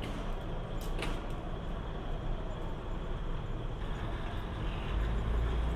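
KiHa 200 series diesel railcar's engine idling with a steady low rumble, two sharp clicks about a second apart near the start. The low rumble grows louder about five seconds in.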